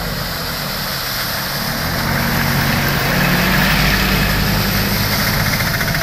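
Vehicle engines running as a van and then a small goods truck drive through shallow floodwater, tyres splashing and spraying water. The sound grows louder as the truck comes up and passes close, with a fast rattling from its engine.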